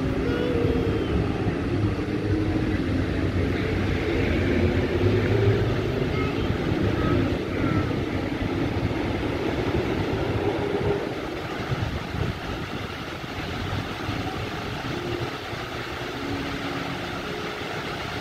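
Steady rushing din of the Bellagio fountain's water jets spraying, mixed with the rumble of street traffic. It eases somewhat about eleven seconds in.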